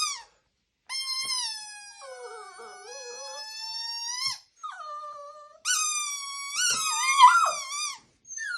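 Shih tzu howling in long, wavering notes, three in a row with short breaks. At times a second, lower wavering voice overlaps the howl.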